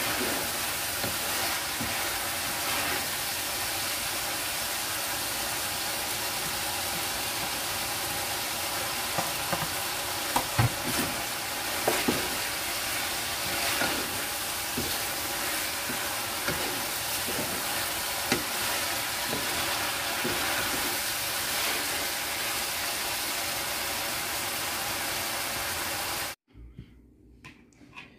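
Chicken and vegetables sizzling in sauce in a frying pan while a wooden spatula stirs and scrapes through them, with a few sharper knocks of the spatula against the pan. The sizzling cuts off abruptly near the end.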